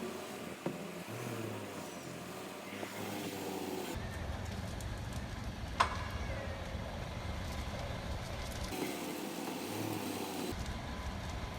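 Car engine idling while the steering is turned, with one sharp click about six seconds in and a fainter one near the start. The click comes from the front shock absorber twisting near full left lock, which the owner diagnoses as a dry shock absorber.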